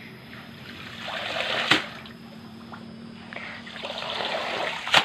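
Water splashing and running off a palm-fibre spawning mat (kakaban) as it is swished in a shallow pond and lifted out, in two swells. Two sharp knocks, one a little under two seconds in and one at the end.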